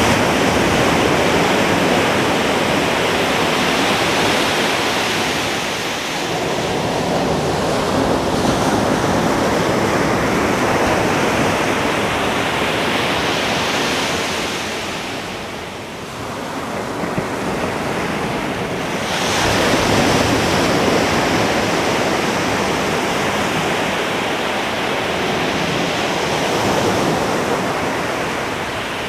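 Ocean surf breaking on a beach: a continuous rush of waves that swells and eases, with a fresh wave crashing in about two-thirds of the way through. Wind can be heard on the microphone.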